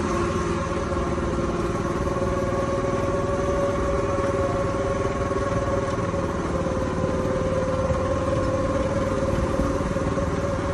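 Go-kart's small engine running at a steady speed, with rapid even pulsing and a steady whine throughout.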